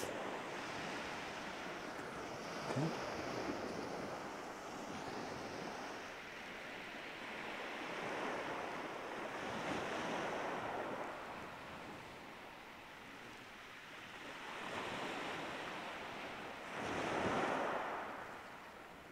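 Waves breaking on a shingle beach and washing over the pebbles, in slow surges that swell and fade, the loudest near the end.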